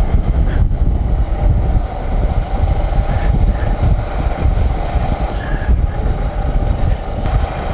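Bajaj Avenger 220 motorcycle cruising at steady speed: its single-cylinder engine runs with a steady hum under heavy wind rumble on the microphone.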